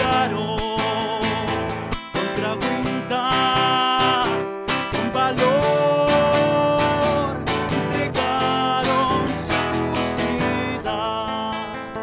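Music: a song with strummed acoustic guitar under a melody of long held notes.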